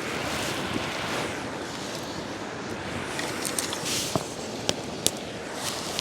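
Several sharp snaps and cracks of wood, mostly close together about four to five seconds in, over a steady rushing background noise.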